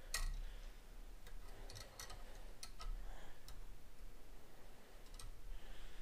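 Faint, irregular clicks and ticks of needle-nose pliers working solid copper wire, bending the stripped ends into J-hooks for outlet screw terminals.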